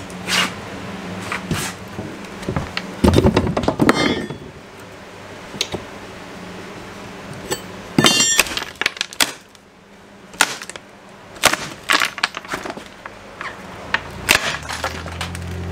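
Irregular knocks, scrapes and clatters of a plywood subfloor piece being handled and fitted into an opening in the floor, with a quick run of metallic clinks about eight seconds in.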